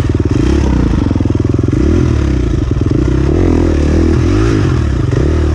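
Husqvarna enduro dirt bike engine, heard close up from the bike itself, revving and easing off several times over, its pitch rising and falling as the rider works the throttle along the trail.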